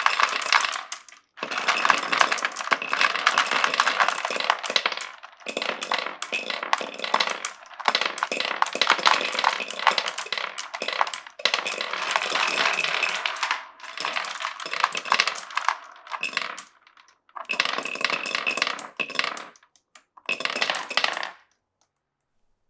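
Glass marbles rolling and clattering down a wooden marble run: dense runs of rapid clicks come in stretches a few seconds long, broken by short gaps. They stop about a second before the end.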